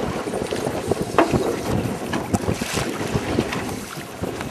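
Wind buffeting the microphone over choppy water slapping against a boat's hull, with a couple of sharp knocks about a second and two seconds in.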